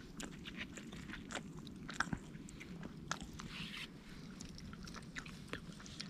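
A person biting into and chewing a piece of stone-roasted chicken: many small, sharp crunches and clicks, fairly quiet.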